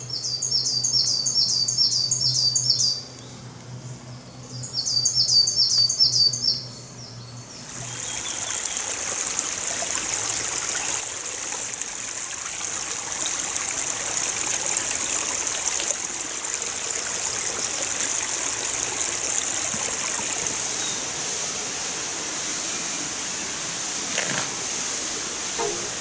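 A bird sings two quick phrases of rapidly repeated high notes. From about eight seconds in, a steady rush of flowing water from a forest stream takes over.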